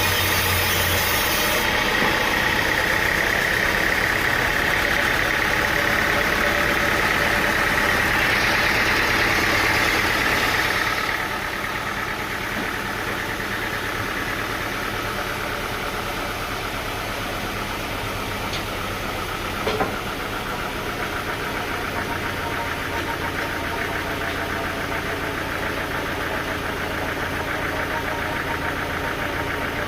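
Engine-driven machinery running steadily. It gets somewhat quieter about eleven seconds in, and there is a single sharp click about twenty seconds in.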